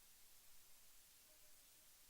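Near silence: faint hiss of the recording.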